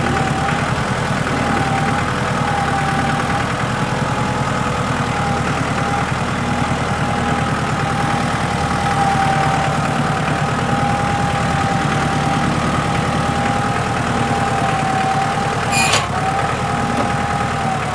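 Caterpillar skid steer's diesel engine running steadily, with a steady high whine over the engine note. A single sharp click or knock sounds near the end.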